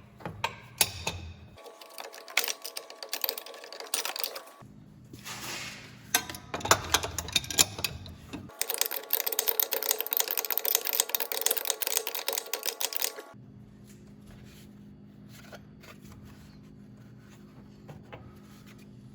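Rapid metallic clicking and clinking of hand tools on the engine's fan clutch nut as it is worked off, in several abruptly cut stretches.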